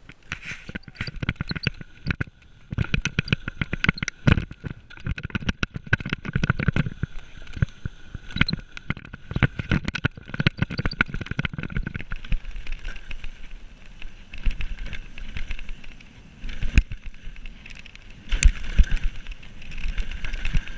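Mountain bike riding fast down a rough dirt trail, heard from a camera mounted on the bike or rider: constant rattle and clatter of the bike over roots and bumps, tyre noise and low wind rumble, with a few heavier thumps of landings about four seconds in and near the end.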